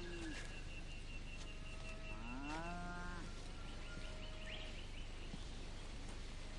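Cattle mooing: one call trails off just after the start, and another rises and holds for about a second, some two seconds in, with a fainter call following.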